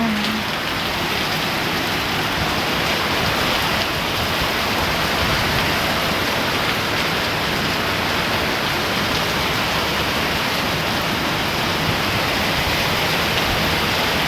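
Heavy rain pouring down: a steady, dense hiss with no letup.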